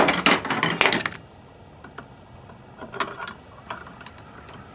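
Metal parts of a hose reel clicking and rattling as they are handled and fitted during reassembly: a quick run of clicks in the first second, then a few lighter clicks about three seconds in.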